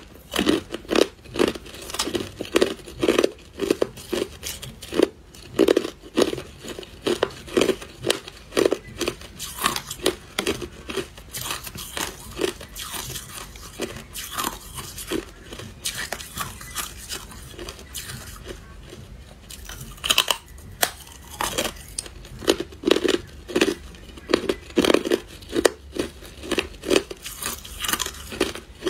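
Hard clear ice being bitten and chewed: a rapid, uneven run of sharp crunches and cracks, thinning out for a few seconds past the middle before picking up again.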